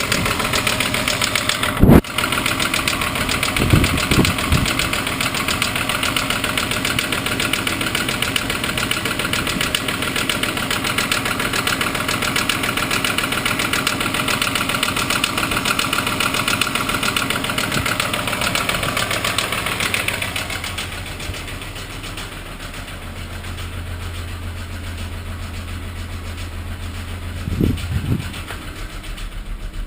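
Mk3 VW Golf VR6 engine running with a bad, rapid knocking while its oil warning light flashes. About twenty seconds in the sound drops to a quieter, lower hum. A sharp knock comes about two seconds in, with a few thumps later.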